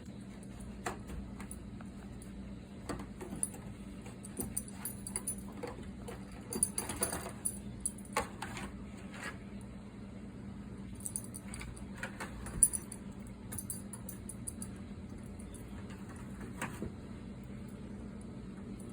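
A dog chewing on an object: irregular clicks, crunches and scrapes of teeth on the thing it holds, with a sharper click about two-thirds of the way through. A steady low hum runs underneath.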